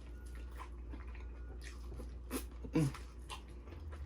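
Close-miked chewing and wet lip smacks of someone eating seafood, with two louder smacks a little past halfway.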